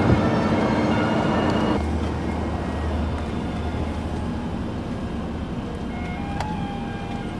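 Train running noise with steady tones that cuts off abruptly about two seconds in, giving way to a quieter low steady hum that slowly fades. A short click and tone sound near the end.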